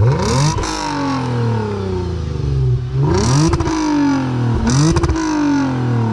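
Lexus RC350's 3.5-litre V6 idling and revved three times through a Greddy axle-back exhaust with the stock mid-pipe. Each rev climbs quickly and falls back to idle: at the start, about three seconds in, and just under five seconds in.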